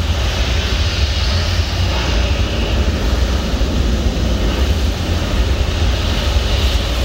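Saturn V launch roar played back through a theatre sound system: a loud, steady, deep rumble.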